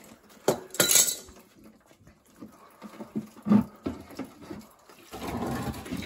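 A few sharp clinks and knocks as metal fittings and the hose are handled. About five seconds in, water starts pouring steadily from a drain hose into a plastic bucket as the flooded steam boiler is drained.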